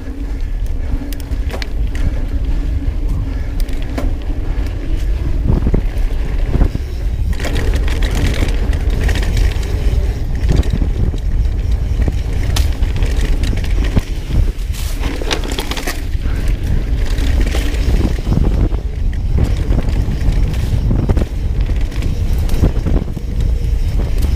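Wind buffeting a bike-mounted or body-mounted camera microphone as a mountain bike rolls fast over dirt singletrack, with frequent short knocks and rattles from the bike over the rough trail.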